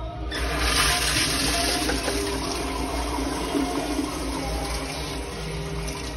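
Commercial toilet flushed by a foot-pedal flush valve. A sudden rush of water starts a moment in, is loudest in the first second, then goes on swirling and slowly eases.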